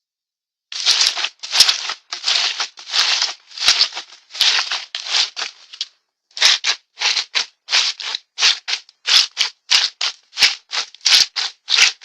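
A series of short rattling shakes, like a maraca or cartoon rattle sound effect. They come irregularly at first, then settle into a quick even run of about three shakes a second from about halfway in.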